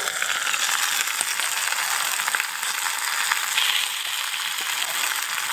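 Roast lamb and vegetables sizzling in a freshly uncovered cast-iron Dutch oven: a steady hiss with scattered small crackles.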